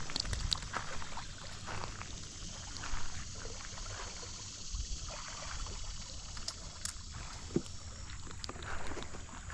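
Water splashing and sloshing, with scattered small knocks and clicks from handling.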